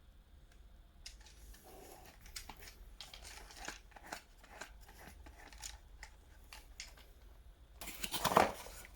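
Faint handling sounds: scattered light clicks and rustling, as of parts and plastic packaging being unpacked, with louder rustling near the end.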